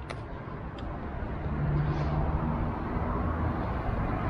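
A motor vehicle's engine running close by, a low rumble that grows louder from about a second in, with a couple of faint clicks near the start.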